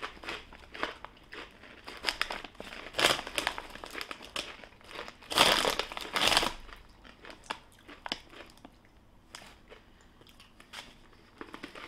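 Plastic snack packet crinkling and rustling as it is handled, in irregular bursts, loudest from about five to six and a half seconds in, with crunching as rolled corn tortilla chips are bitten and chewed. It goes quieter for the last few seconds.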